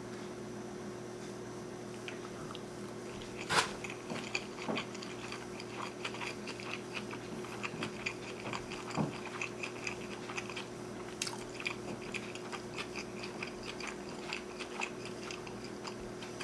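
Close-miked biting and chewing of a sushi roll: small, irregular wet mouth clicks and crunches, with a sharper click about three and a half seconds in, over a faint steady hum.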